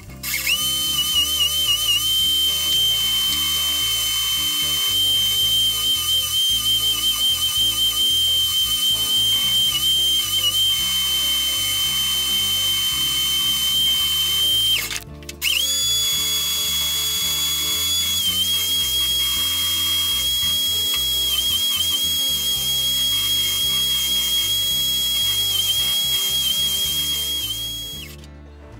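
Electric belt sander, clamped upside down, running with a steady high whine while a wooden piece is held against its sanding belt; the whine wavers slightly now and then. It cuts out briefly about halfway, starts again and fades away near the end.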